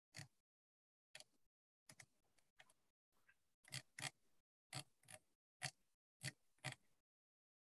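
Faint, irregular clicks and taps, about a dozen, several in quick pairs, with dead silence between them as the video-call audio gates in and out.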